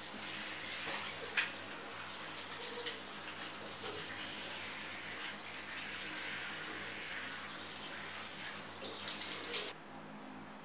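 Handheld shower head spraying water over a wet poodle's coat, a steady hiss of running water with small splashes. It cuts off suddenly near the end, leaving quiet room tone.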